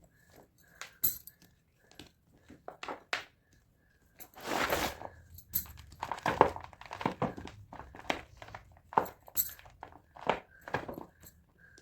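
Blocks of gym chalk being crushed: a run of short, irregular crunches, with a longer crunch about four and a half seconds in.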